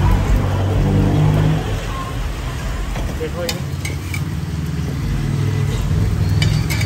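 Busy street-food kitchen: a steady low mechanical hum with frying sizzling underneath, and a few sharp clinks of metal ladles and spoons near the end as toppings are served.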